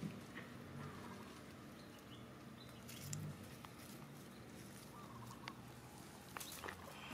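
Faint rustling and light patter of dry leaves as macaques move about on the leaf litter, with a few short high chirps.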